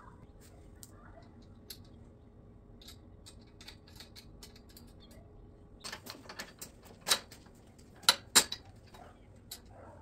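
Small metal clicks and clinks of bolts and nuts being handled and fitted by hand into a metal tube saw-stand frame, sparse at first, with a few sharper clinks in the second half.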